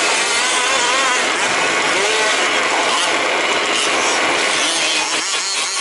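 Several 1/5-scale RC trucks' small two-stroke petrol engines running and revving together, their pitch rising and falling.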